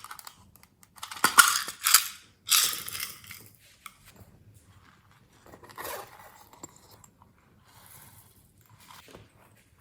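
Glossy slime being squeezed and worked by hand, making clicky, noisy bursts: several loud ones in the first three seconds, then fainter, sparser ones.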